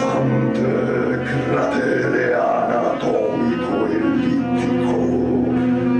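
Violin bowed in free improvisation over a man's low, sustained vocal drone into a microphone, the layered tones holding steady with many overtones.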